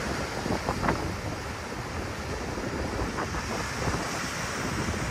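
Sea waves breaking and washing up a shingle beach, with wind noise on the microphone underneath.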